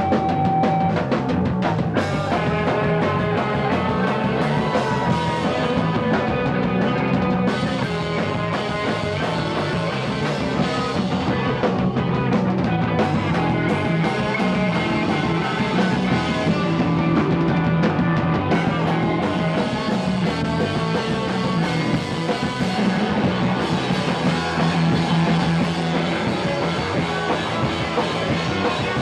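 Rock music with drum kit and guitar, playing continuously.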